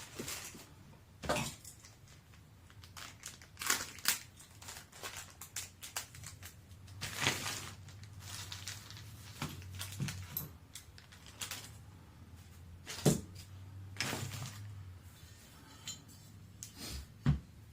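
Irregular clicks, taps and rustling of small AR-15 parts and hand tools being handled while assembling the rifle, a few sharper knocks among them, over a faint low hum.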